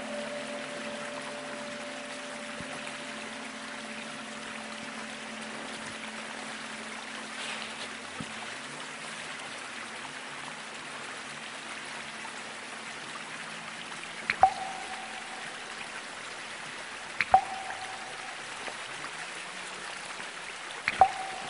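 Steady trickling water with three water drops plinking into water, the second and third about three seconds apart, each leaving a short ringing tone. A held low drone fades away at the start.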